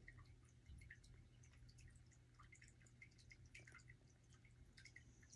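Near silence: faint room tone with a low hum and a few tiny scattered ticks.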